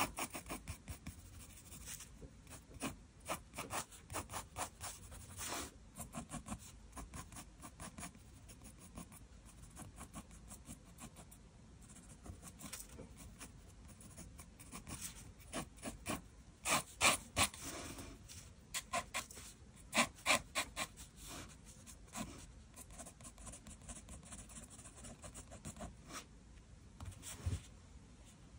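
Mechanical pencil scratching on sketchbook paper in quick short strokes, clustered in bursts of sketching and hatching with brief pauses between.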